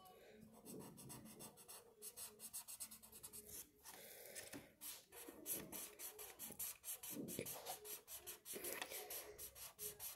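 Felt-tip marker scratching on paper in quick, repeated back-and-forth colouring strokes, faint and uneven.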